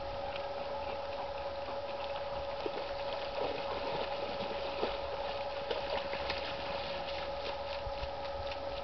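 Alaskan malamutes splashing as they run through shallow lake water, with scattered small splashes and clicks over a steady hum.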